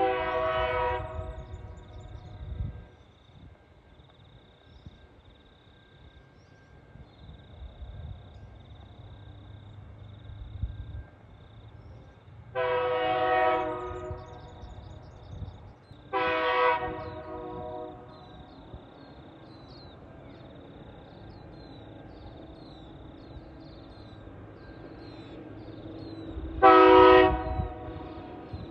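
Air horn of TasRail TR-class diesel locomotive TR14 sounding four chord blasts: three of about one and a half seconds each, the first near the start and two close together in the middle, then a shorter, loudest one near the end. A low rumble runs between them as the locomotive hauls a 59-wagon freight train uphill.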